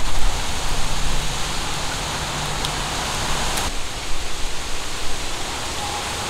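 A small aluminium kettle hissing steadily as it heats on a fire stand. About three and a half seconds in, this gives way to hot water pouring from the kettle into a small metal gooseneck drip kettle, a steady splashing stream.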